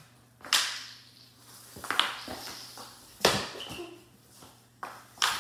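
Plastic mini hockey stick knocking a ball on a hardwood floor: four sharp knocks a second or so apart, each echoing briefly in the room.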